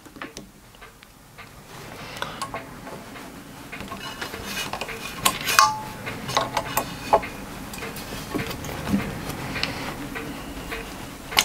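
Scattered light metallic clicks and clinks from hand work on a lathe as a 6BA tap is started in an aluminium part, the chuck turned by hand a little at a time. The clicks come more often and louder from about four seconds in.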